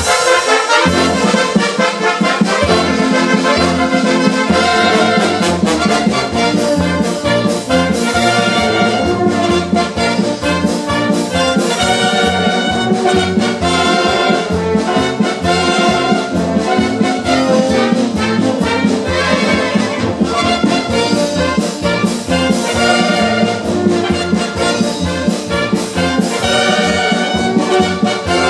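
A military wind band of saxophones, trumpets and trombones playing a tune with a steady beat.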